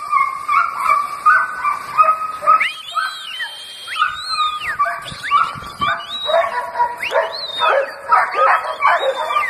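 Belgian Malinois yipping and barking over and over, with high whines that rise and fall in the middle, then a quicker run of barks from about six seconds in.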